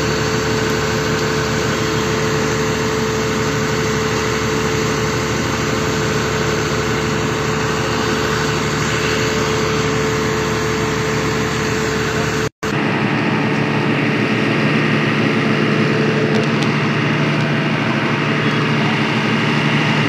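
A MAN fire engine's diesel engine idling steadily, with a brief dropout about two-thirds of the way through.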